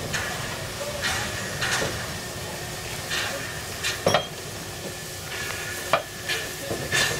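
Narrow-gauge 2-10-2 tank steam locomotive 99 7234 moving slowly, puffing out steam in short hissing chuffs about once a second, with a couple of sharp metallic clanks and a steady steam hiss from the jet escaping low beside its wheels.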